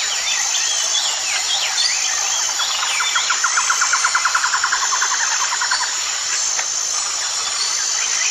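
Tropical forest ambience: a steady high-pitched insect drone under several birds calling with quick rising and falling whistles. About three seconds in, a fast, evenly pulsed trill runs for roughly three seconds.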